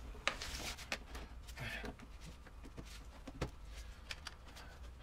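Faint handling noise from gloved hands working on rubber intake hoses and plastic connectors in an engine bay, with a few sharp light clicks.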